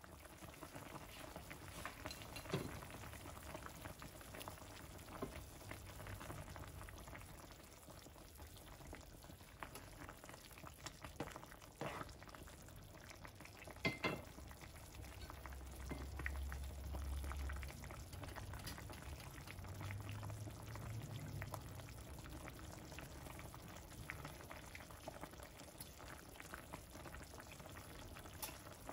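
Chicken ginger soup (tinola) simmering in a pan, with steady soft bubbling and crackling. A sharp clink about halfway through as the glass pot lid is lifted off.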